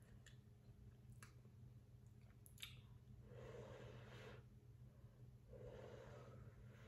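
Faint eating sounds over near silence: a few small clicks of spoon and mouth, then two soft breathy sips at a spoonful of hot soft tofu stew.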